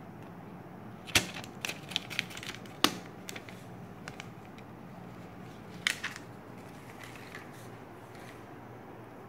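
A printed thermal paper receipt being gripped and pulled from a thermal receipt printer: a quick run of sharp crackles and clicks between about one and three seconds in, then another short pair of clicks about six seconds in.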